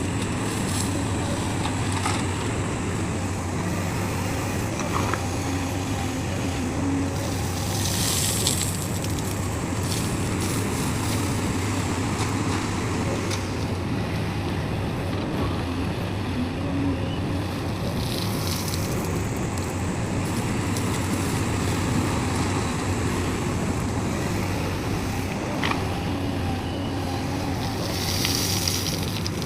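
Heavy diesel machinery running steadily with a low engine hum. Short hissing bursts come roughly every ten seconds.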